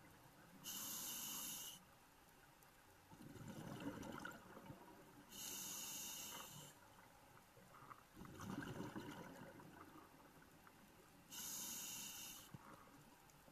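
Scuba diver breathing through a regulator underwater: three hisses of inhaled air through the demand valve, each about a second long, alternating with two longer bubbling rushes of exhaled air.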